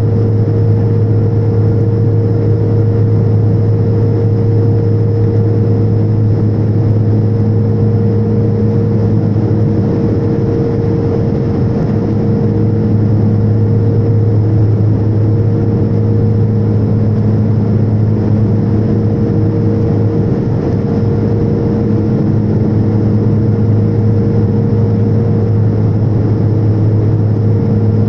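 Turboprop engine and propeller heard from inside the passenger cabin in flight: a loud, steady drone with a strong low hum and a few higher steady tones, unchanging throughout.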